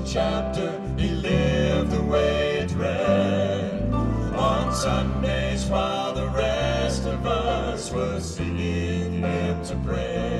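Male Southern gospel vocal quartet singing in close harmony, with sustained low bass notes underneath.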